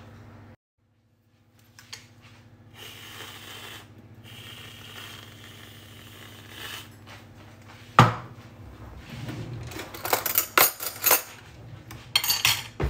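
Aerosol can of whipped cream hissing as the cream is sprayed out, in two long spurts. Then a sharp knock, and a run of clinks and clatters of spoons and crockery, all over a steady low hum.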